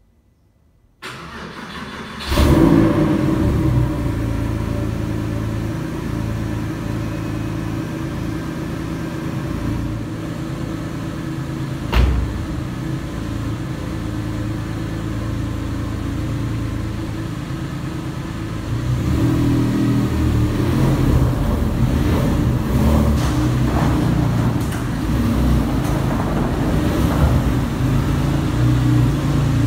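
Porsche 911 (996) flat-six cold-started after four months of winter storage: the starter cranks about a second in and the engine catches at once on the button with a loud flare, then settles into a steady idle, with a single knock partway through. Near the end it runs louder as the car pulls away and drives past.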